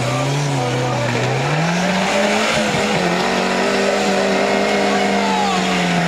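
Off-road trial prototype's engine revving hard on a steep dirt climb, the revs rising about two seconds in and held high as the tyres spin and throw up dirt.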